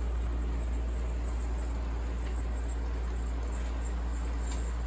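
Model freight train running steadily along the layout track: an even low hum with a faint thin high whine over it.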